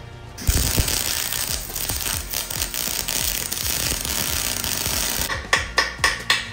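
Arc welding a steel axle tube to a preheated cast-iron Ford 8.8 differential housing: a dense, steady crackle of the arc starting about half a second in and stopping near the end. Then a hammer knocks sharply on the fresh weld, about four blows a second.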